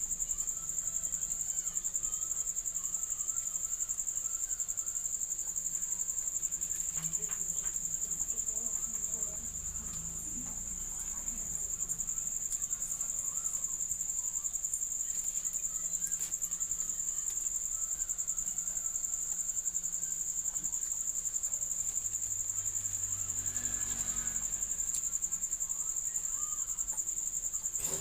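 A high-pitched insect trilling steadily without a break, with a fast, even pulse.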